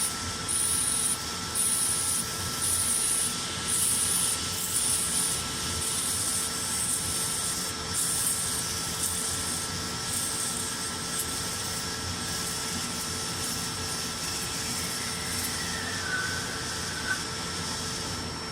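Nakamura-Tome Super NTM3 CNC turning center running a machining program: a steady machine whine under a high hiss that pulses about once a second, then evens out. Near the end there is a brief higher squeak.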